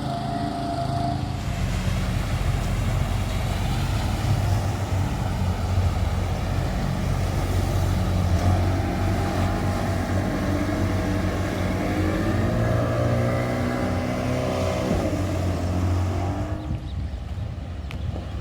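An engine running steadily. Its pitch climbs slowly for several seconds, then drops suddenly, and the sound eases off near the end.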